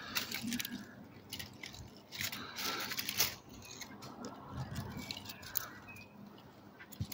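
Dry dead leaves and twigs on top of a hedge rustling and crackling in irregular bursts as a cat shifts on them and a hand strokes it.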